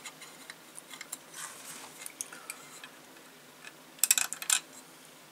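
Small clicks and taps of metal tweezers and a small part against a metal model chassis as the part is worked into place, with a quick cluster of louder clicks about four seconds in.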